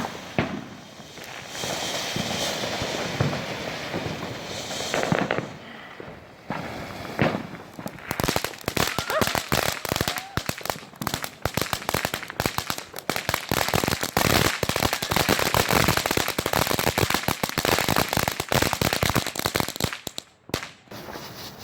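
Fireworks going off: a few separate bangs over a hissing haze, then from about eight seconds in a long, dense run of rapid crackling that stops near the end.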